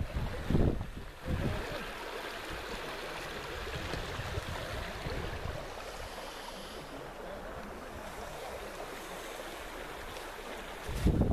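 Sweetwater River's current running over riffles in a steady rush, with wind gusting on the microphone in the first second or so and again near the end.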